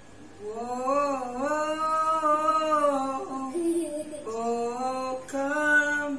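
One voice singing unaccompanied in long held, gliding notes, with a short break about four seconds in.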